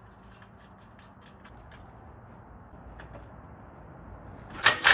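Faint rubbing and small metal clicks as a castle nut is spun by hand onto the stud of a tie rod end, then near the end two short bursts of a cordless impact wrench hammering the nut down.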